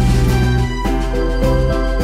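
Background music with sustained pitched notes over a steady, pulsing bass line.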